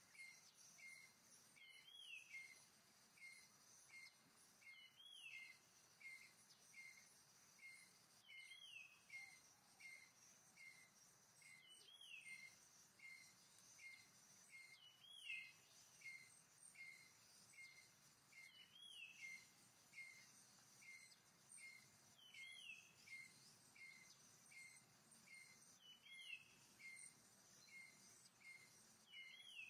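Faint forest ambience: a bird repeating short high chirps about twice a second, with a longer falling call every three to four seconds, over a steady high insect drone.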